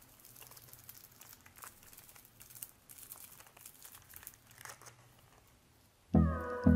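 Faint crinkling and tearing of Buldak fire-noodle sauce sachets being torn open and squeezed out by hand. About six seconds in, loud background music with a steady beat starts.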